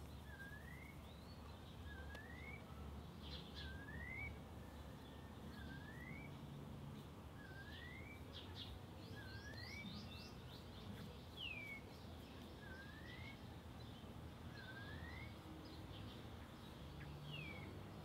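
A bird repeating a short rising whistle about every one and a half to two seconds, with a couple of falling whistles and scattered higher chirps in between.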